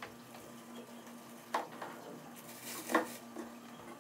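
Ice tray being handled and filled with water, with light clattering knocks about a second and a half in and a louder one about three seconds in, over a faint steady hum.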